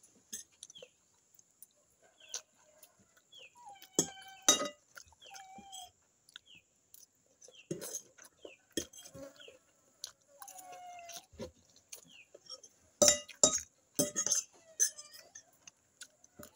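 A metal fork clinking and scraping against a glass bowl of macaroni in sharp, scattered taps, with chewing in between. Birds chirp and chickens cluck in the background.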